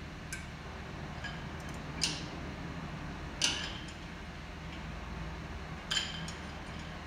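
Metal tools and parts being handled: three sharp metallic clinks with a short ring, about two, three and a half and six seconds in, with a few lighter ticks, over a steady low hum.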